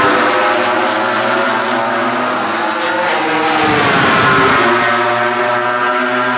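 MotoGP race motorcycles at high revs passing by on the straight, their engine note dropping in pitch as each goes past. One is at its loudest right at the start, and another rises and passes about four seconds in.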